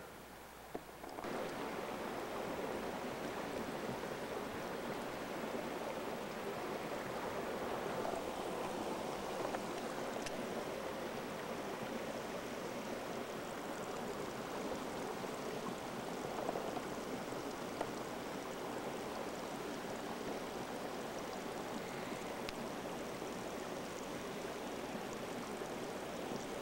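Steady rush of running stream water, cutting in suddenly about a second in.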